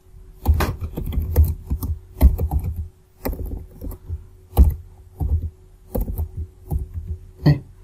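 Typing on a computer keyboard: an irregular run of key clicks, some quick and some spaced out, over a faint steady hum.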